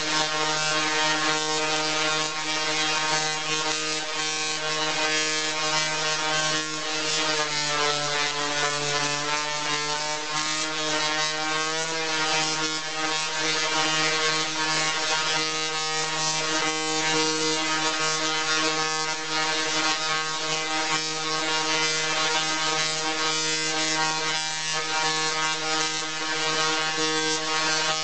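Dual-resonant solid-state Tesla coil's spark discharges buzzing loudly and steadily at the interrupter's firing rate, with a harsh crackling edge. The pitch sags and climbs back a little in the middle.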